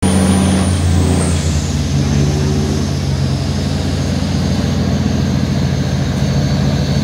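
Diesel engines of river tugboats towing barges, running under load with a steady heavy drone; the engine note shifts slightly about a second or two in.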